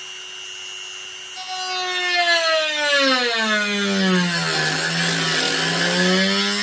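Handheld electric rotary tool running at high speed with a steady whine, then its pitch falls steadily and it grows louder as the bit bites into the guitar's wooden side and the motor slows under the cutting load. It eases slightly back up in pitch near the end.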